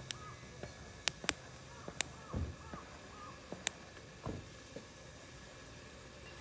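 Campfire crackling: sharp single pops of burning wood every second or so, with two dull thumps and faint short squeaks.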